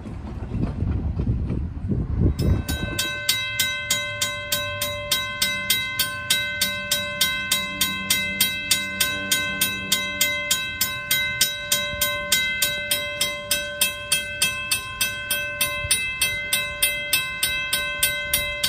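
Railroad grade-crossing warning bell ringing steadily, about three strikes a second, starting a couple of seconds in after a low rumble.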